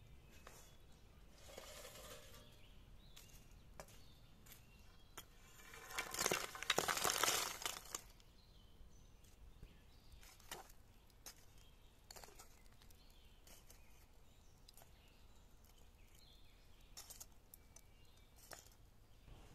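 Lumps of charcoal tipped into a brick grill pit: a loud burst of tumbling noise lasting about two seconds, about six seconds in, after a weaker one near the start. Scattered single clicks follow as the charcoal pieces are knocked and shifted with metal tongs.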